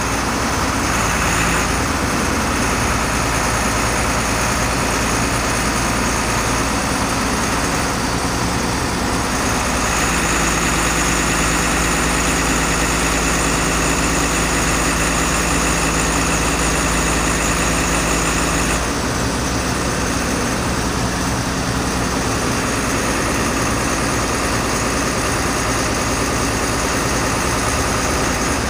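Diesel engine of a Cedarapids CR-416R tracked asphalt paver running steadily at idle, its note shifting slightly a couple of times.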